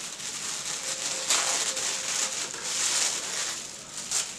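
Tissue paper rustling and crinkling as it is pulled open by hand, in several surges, loudest about a second and a half in.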